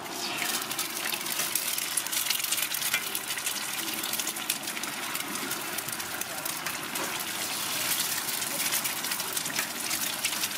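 Eggs frying in oil on a large flat griddle: a steady sizzle with dense crackling that starts as the first egg hits the hot surface, while more eggs are cracked on.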